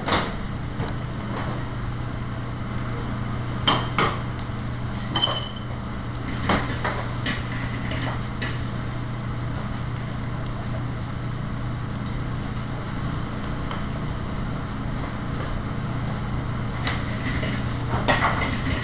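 Food sizzling on a flat-top griddle over the steady hum of a kitchen exhaust hood, with scattered clinks and clanks of pans and utensils, several about a third of the way in and a cluster near the end.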